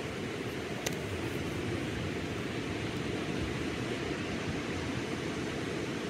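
Small ocean waves breaking and washing up a sandy beach: a steady, low rushing surf. One short sharp click about a second in.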